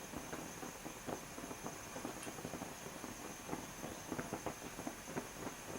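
Faint room tone: a steady hiss with scattered small irregular clicks and taps, like light handling or movement.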